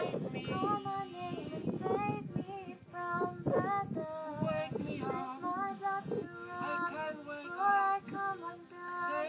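A high voice singing a melody, with a low noise underneath.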